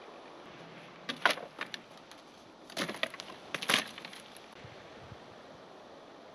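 Dry wood cracking and snapping in two quick clusters of sharp cracks, one about a second in and a louder one about three seconds in, over a steady hiss of background noise.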